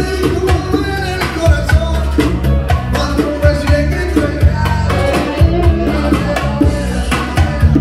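Live Latin music played loud through a PA: a man singing over drums and percussion with a steady beat.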